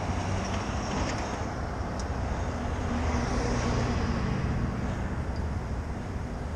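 Street traffic noise with a steady low rumble, a motor vehicle passing and loudest about halfway through.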